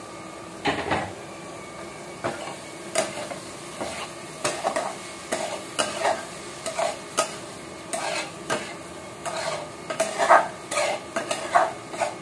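Steel spatula stirring paneer bhurji in a steel kadhai, a run of short scraping clinks against the pan, roughly one or two a second, over a light sizzle. A louder knock comes about a second in.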